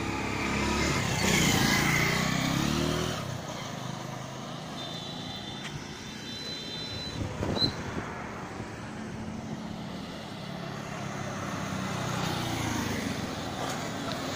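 Motorcycle engines running on a road, louder in the first few seconds and again near the end, over a steady rush of wind and road noise.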